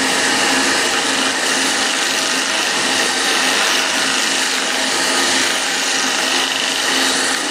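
Bench disc sander running with a small wooden block pressed against its spinning abrasive disc. The wood being sanded makes a steady, loud grinding noise over the motor's faint hum.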